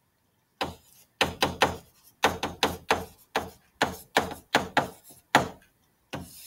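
A stylus tapping and stroking on a tablet screen while handwriting: a string of short, sharp taps, roughly two a second.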